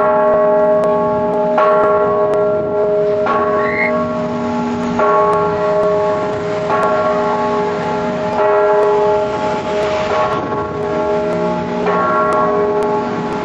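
A large church bell tolling, struck about every second and a half to two seconds, each stroke ringing on into the next.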